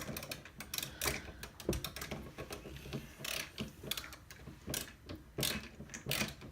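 Yellow Snap-On ratcheting screwdriver clicking in irregular bursts as a screw is driven in.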